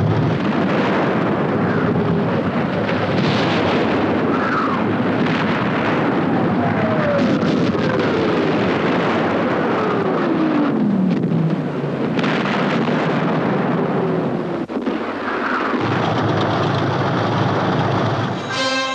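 Battle sound effects: a dense, continuous rumble of explosions and engines, with several long falling whistles through the middle and a few sharp knocks.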